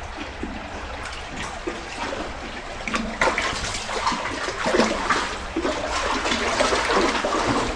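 Creek water running and splashing as dogs swim through a culvert. The splashing grows louder and busier about three seconds in.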